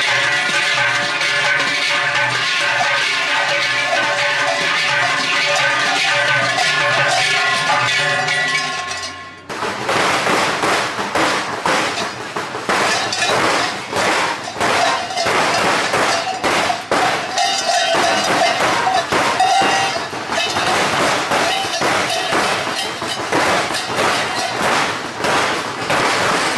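A mass of large cowbells worn by costumed Perchten, ringing together continuously as the dancers shake them. After an abrupt cut about nine seconds in, it becomes a denser, irregular clanging and clinking of bells and metal.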